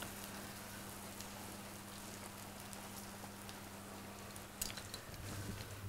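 Chicken breast frying on a flat griddle: a faint steady sizzle with small scattered crackles, and a sharp click about four and a half seconds in.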